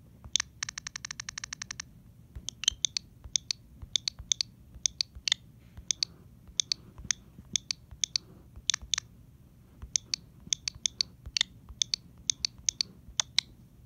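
A fast, even run of ticks lasting about a second, followed by a series of short, sharp, irregular clicks, two or three a second.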